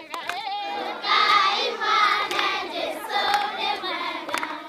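A group of children singing together, with hand claps; the singing swells louder and fuller about a second in.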